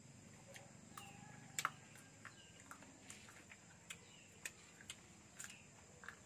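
Near-quiet with scattered small clicks and ticks from eating and from a mango slice being worked in a small cup of chili dip; the loudest is a pair of sharp clicks about one and a half seconds in.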